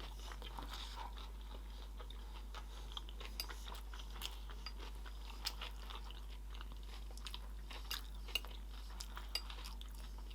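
Close-miked chewing of sushi rolls, with crisp, crunchy bites and irregular wet clicks of the mouth.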